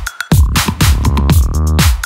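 Electronic dance music with a drum-machine beat, sharp hits and a deep bass line.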